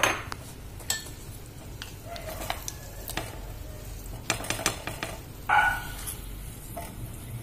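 A spatula scraping and knocking in a pan as it pushes a lump of thick date paste through hot ghee. There are scattered sharp clicks and a brief louder scrape about five and a half seconds in, over a faint sizzle.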